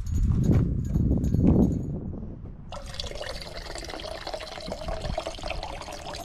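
A low rumble and knocks for about two seconds. Then, suddenly, water running or pouring in a steady stream with a hollow ringing tone, like a container being filled.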